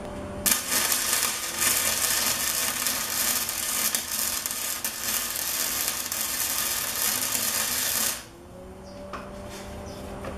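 Electric arc welding on steel PTR (rectangular tube) at the corner of a frame: a steady crackling, spattering hiss that starts about half a second in and cuts off suddenly after about eight seconds when the arc is broken.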